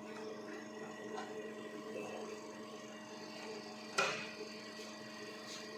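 Steady electrical hum of running equipment, with one sharp click or knock about four seconds in.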